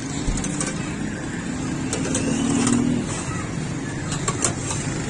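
Road traffic running steadily, with one motor vehicle's engine swelling louder and then falling back in the middle. A few light, sharp clicks sound over it.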